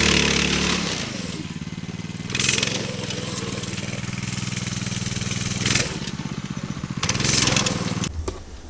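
Small gas engine of a remote-controlled go-kart running as the kart drives. Its speed falls about a second in and it runs steadily, with two short louder bursts, then the sound stops abruptly near the end.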